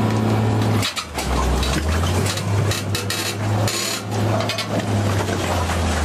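Excavator's diesel engine running under load with a steady low drone that drops in pitch about a second in, while its rock-cutting attachment grinds and clatters against marble in a narrow cut.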